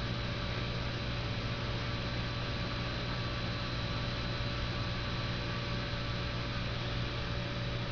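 Steady electrical hum with a faint high whine over a background hiss, unchanging throughout.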